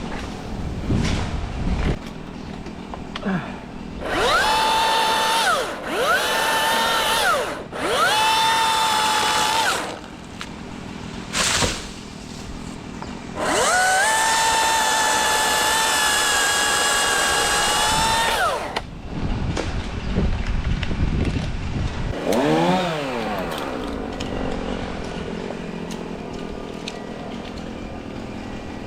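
Milwaukee battery-powered top-handle chainsaw spinning up to a high steady whine and winding down again, three short bursts in quick succession, then a longer steady run of about five seconds, as when cutting through a limb.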